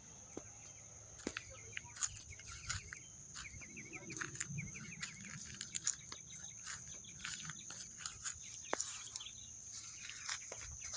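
Steady high-pitched buzz of insects, with a run of short, quickly repeated bird chirps a few seconds in and scattered light clicks and crackles throughout.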